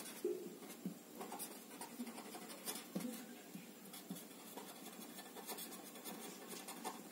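Marker pen writing on paper: faint, irregular scratching strokes as words are written out by hand.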